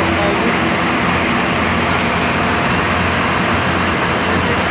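A river boat's engine running steadily under a continuous rush of wind and water.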